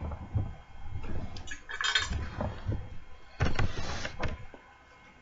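Cutlery scraping and clinking against a food pot as a mouthful is scooped up, with light knocks and two longer scrapes, one about two seconds in and one around three and a half seconds in.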